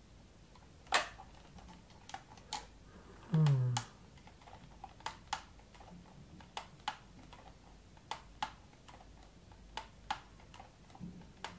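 Sharp plastic clicks of the buttons and switches on a handheld RC car transmitter being pressed, irregular and often in pairs, while it is being bound to a new ESC. About three and a half seconds in, a man makes a short low 'hmm' that falls in pitch.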